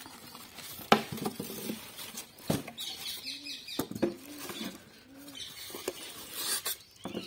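Unpacking noise: polystyrene foam packing blocks squeaking and rubbing against cardboard and plastic wrap, with several knocks as the packed welding machine is lifted out and set down on a wooden stool, the loudest knock about a second in.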